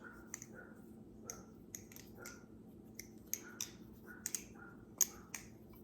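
Theone Bamboo balisong with channel-construction handles being flipped: quiet, irregular clicks and clacks of the handles and pivots, two or three a second.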